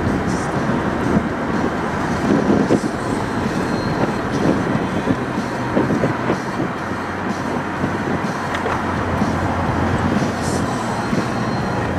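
Steady road and engine rumble heard inside the cabin of a moving car, with tyre and drivetrain noise at cruising speed.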